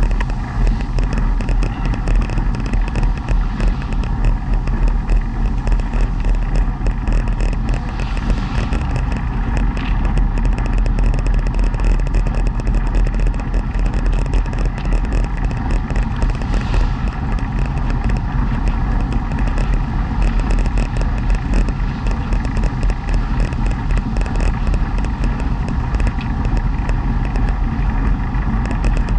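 Steady rolling rumble and whir of a velomobile riding on asphalt, heard from inside its shell, with its tyres and drivetrain running without a break.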